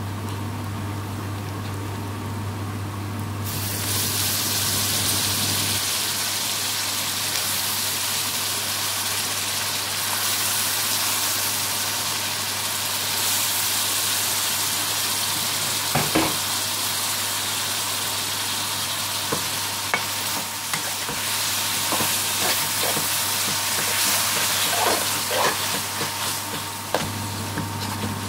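Raw chicken pieces sizzling in hot oil and fried onions in a metal pan, the sizzle starting about three seconds in and continuing steadily. A metal spoon scrapes and taps the pan now and then, mostly near the end as the chicken is stirred.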